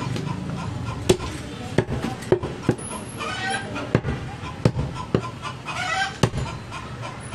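Heavy butcher's knife chopping goat meat on a wooden chopping block: about eight sharp, irregular chops. An animal calls twice in the background between the chops.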